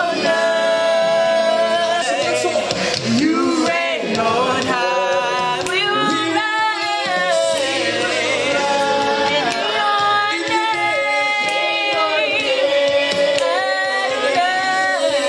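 Recorded gospel worship song with lead vocals, and two women singing along with it.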